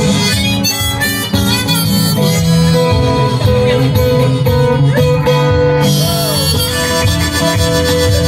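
Blues harmonica played from a neck rack, with long held notes and bent notes, over guitar accompaniment.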